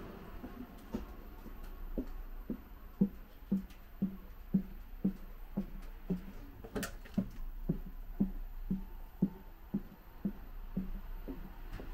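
Footsteps of a person walking at an even pace along the aisle of an empty PESA Dart ED161 train carriage, about two steps a second, starting about two seconds in. They are heard over a steady low hum, with a single sharp click near the middle.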